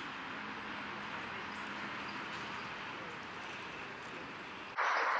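Steady background hiss with no distinct events. Near the end it cuts abruptly to a louder hiss.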